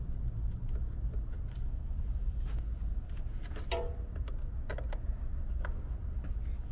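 Light, irregular metallic clicks of a small open-end wrench on a stainless fuel-line fitting as it is tightened into the fuel filter housing of a 5.9 Cummins, over a steady low hum.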